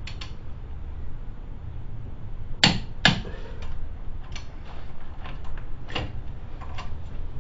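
Click-type torque wrench set to 75 ft-lb tightening the front hub bearing's hub-to-knuckle bolts: two sharp metallic clicks about half a second apart a few seconds in, the wrench breaking over as a bolt reaches torque, followed by several lighter clicks.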